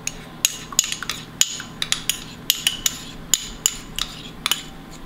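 Two metal spoons clinking and scraping against each other as sticky molasses is scraped off one spoon with the other. Light, sharp clinks, about three a second at uneven spacing.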